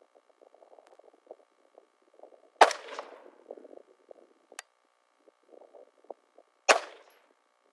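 Two rifle shots about four seconds apart, each with a short echoing tail.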